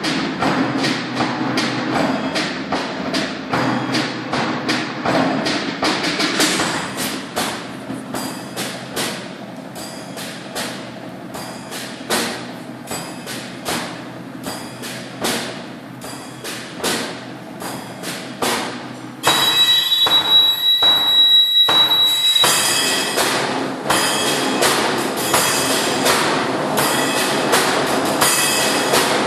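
Percussion ensemble playing a train-imitation piece with sticks: quick, even strokes build up like a train's wheels. About 19 seconds in, the playing jumps louder and a high steady tone, like a whistle, sounds for about three seconds, then the dense playing continues loudly.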